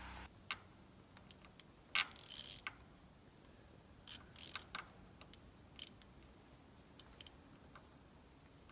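Faint clicks and a few short scraping rasps from a hose clamp and fitting on black plastic tubing being worked by hand, tightened to stop a leaking joint.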